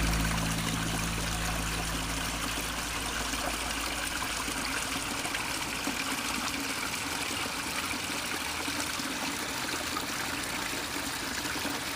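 Small stream and waterfall trickling and splashing, a steady, even rush of running water.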